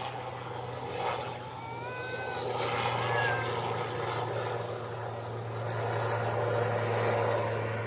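A steady low hum, like a motor running in the background, with a few brief faint rising high calls about two and three seconds in.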